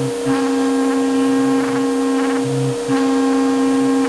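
CNC router spindle running at speed with its compression bit cutting through a melamine-faced particleboard sheet: a steady whine with a grinding cutting noise beneath, whose higher overtones swell and fade every second or so.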